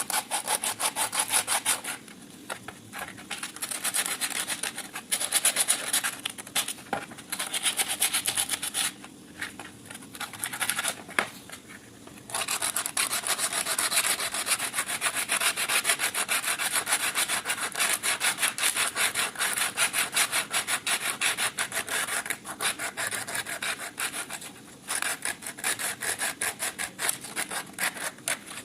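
Fast back-and-forth abrasive rubbing strokes against the wrench, in spells broken by short pauses.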